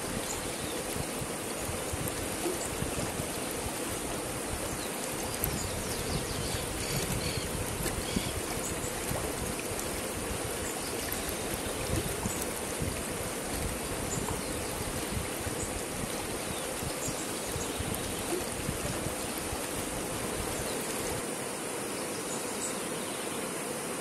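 Shallow river flowing over rocks: a steady, continuous rush and babble of water.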